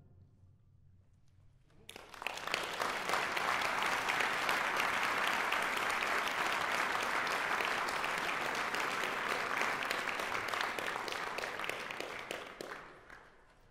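Audience applauding: after about two seconds of near silence, clapping starts up, holds steady and fades out near the end.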